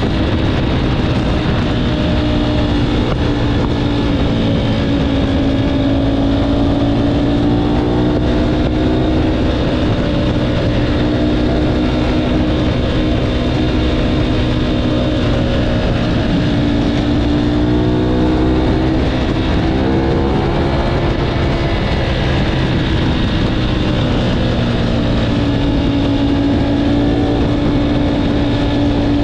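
Ducati Panigale V4 motorcycle's V4 engine running through a Termignoni race slip-on exhaust, a loud continuous exhaust note whose pitch slowly rises and falls.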